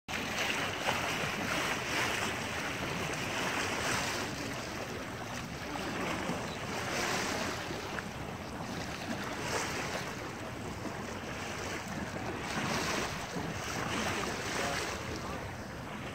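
Wind buffeting the microphone over the wash of water along a sailboat's hull under way, rising and falling in gusts every few seconds.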